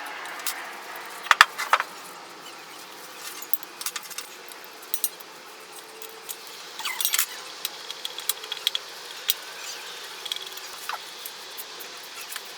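Small metal parts and tools clinking and clattering on a workbench while an old cast-iron post drill is taken apart. Scattered sharp clinks, loudest in a quick cluster about a second and a half in and again around seven seconds.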